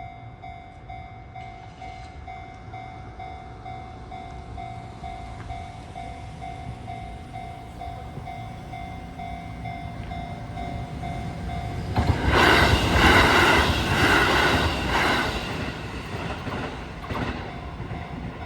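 Japanese level-crossing warning bell ringing in a steady repeated tone. About twelve seconds in a Sanyo 6000 series electric train passes loudly over the crossing, its wheels clattering in a rhythm for about four seconds before the noise fades.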